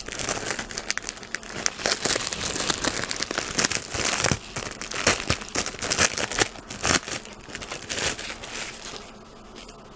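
Packaging being crinkled and torn as an item is unwrapped by hand: a dense run of crackling and rustling that stops about nine seconds in.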